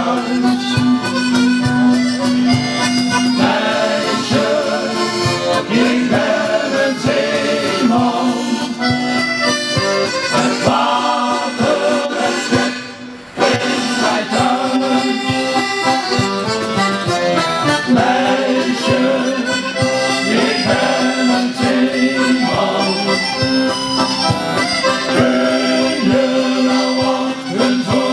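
Male shanty choir singing a sea shanty together to accordion accompaniment, with a steady beat. The music drops away briefly about halfway through, then carries on.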